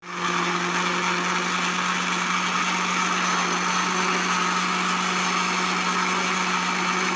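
Electric blender switched on and running at a steady speed, pureeing broccoli soup.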